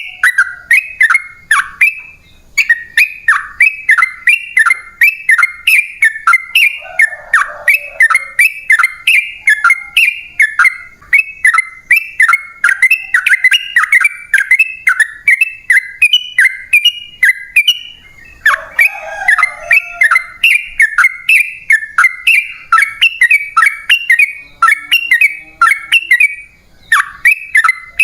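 Yellow-vented bulbul (trucukan) singing a long, rapid run of repeated falling chattering notes, about three to four a second, with a few short breaks.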